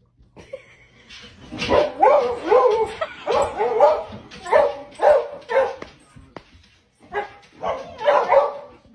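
A dog barking in several clusters of quick barks with short pauses between them, starting after a brief silence.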